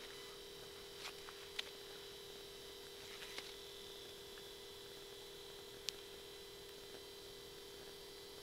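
Faint steady electrical hum, a low tone with a higher one above it, broken by a few faint sharp clicks.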